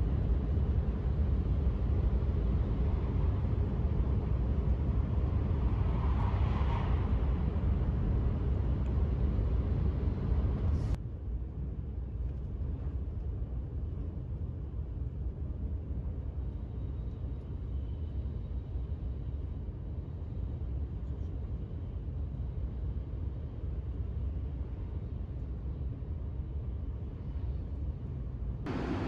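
Steady low rumble inside the passenger cabin of a running E5-series Hayabusa Shinkansen bullet train. The level drops suddenly about eleven seconds in, then holds steady.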